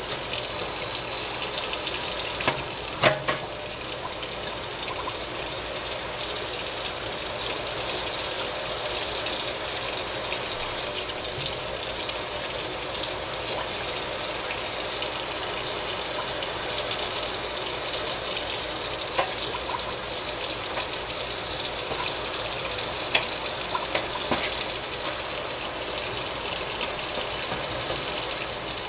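Kitchen faucet running in a steady stream into a stainless steel sink. Two sharp knocks come about three seconds in, and a few faint clicks follow later.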